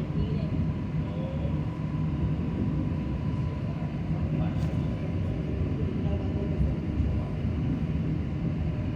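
Tren de la Costa train running, a steady low rumble with a faint steady tone above it.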